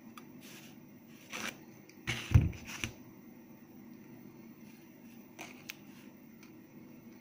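Hand pliers being handled while bending thin stainless-steel wire: a pair of pliers is set down and another picked up, with a dull thump and a few clicks a little over two seconds in, then light clicks of the pliers on the wire.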